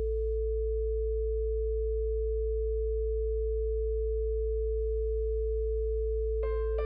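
Steady pure sine tones of a sound-healing track: a deep 55 Hz tone with a second steady, higher tone above it. Faint background music dies away just after the start, and electric piano notes come in near the end.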